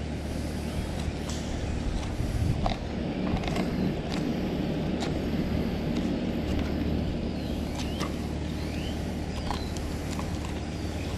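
A knife cutting through a sheepshead's tough scales and rib cage while filleting, heard as scattered sharp clicks and crunches. Under it runs a steady low mechanical hum, and there are a few short high chirps.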